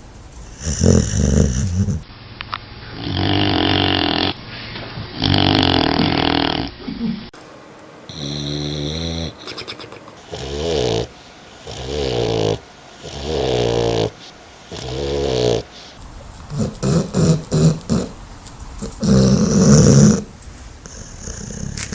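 Dogs snoring in their sleep: a run of snoring breaths, each about one to two seconds long, from several recordings spliced one after another.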